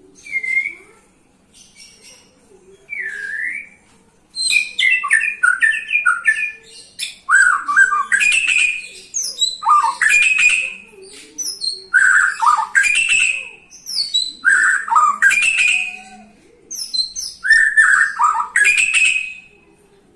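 White-rumped shama singing: a few short rising calls, then from about four seconds in a loud, varied song of rich warbled phrases, each about two seconds long with brief pauses between.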